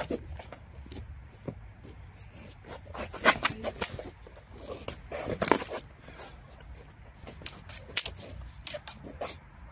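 Synthetic Han-style sparring swords clacking against each other and striking padded armour. The knocks are sharp and irregular, and bunch together about three and five seconds in.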